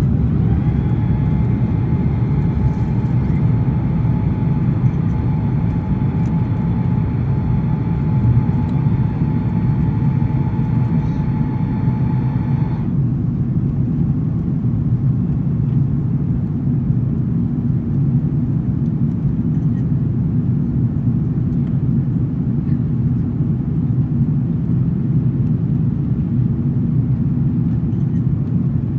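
Steady low roar inside the cabin of an Airbus A330-200 climbing after takeoff, engines and airflow heard from a seat over the wing. A faint steady whine runs over it and stops suddenly about 13 seconds in.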